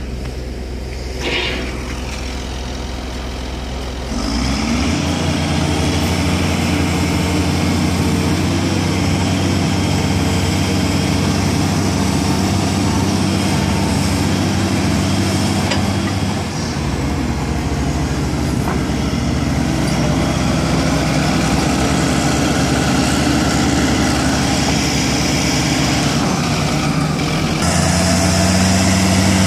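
Heavy diesel engines of Caterpillar earthmoving machines running steadily, the engine note changing abruptly about four seconds in and again near the end.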